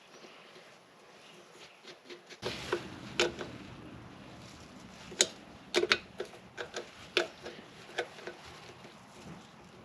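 Irregular sharp clicks and taps of small parts and tools being handled while fitting parts back onto an electric motor's switch assembly. A low steady background noise comes in about two and a half seconds in.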